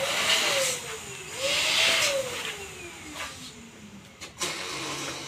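Electric balloon pump blowing up a balloon in two short bursts. Each burst is a rush of air with a motor whine that rises, then falls in pitch as the motor winds down after the second burst.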